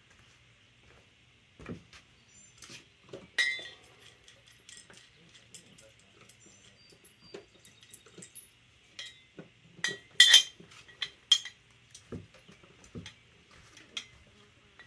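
Loose engine-stand hardware (nuts, washers, bolts) clinking and rattling as it is handled. The clicks are scattered and irregular, with the loudest a few seconds in and a cluster around ten seconds in.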